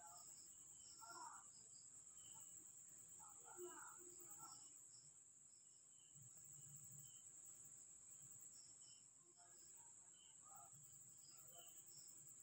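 Faint night chorus of crickets: a continuous high trill, with scattered short chirps above it.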